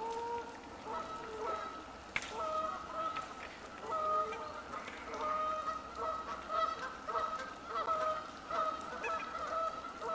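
Geese honking, many short calls repeating and overlapping, with one sharp click about two seconds in.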